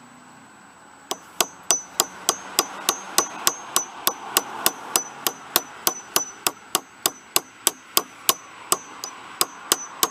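Claw hammer striking metal in a fast, steady series of about three or four blows a second, each with a short high ring, starting about a second in. It is beating on a stuck gear to drive it off an old starter motor.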